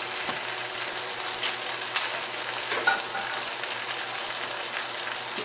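Beef and broccoli sizzling in a wok: a steady frying hiss with a few small crackles.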